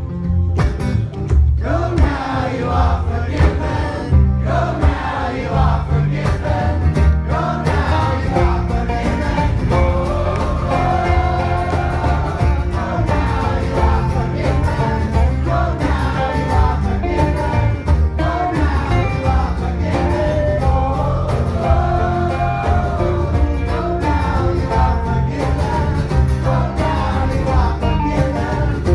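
Live acoustic folk-rock band playing with a steady beat: banjo, acoustic guitars, fiddle and bass, with several voices singing together over the top.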